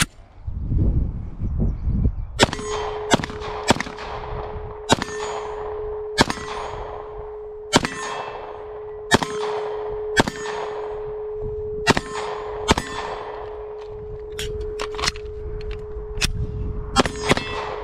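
A Canik SFX Rival 9mm pistol firing a string of about fifteen shots at an uneven pace, roughly one every half to one and a half seconds, starting about two and a half seconds in. Each shot trails off in a metallic ring, with a steady ringing tone held underneath from the first shot on, typical of hits on steel targets.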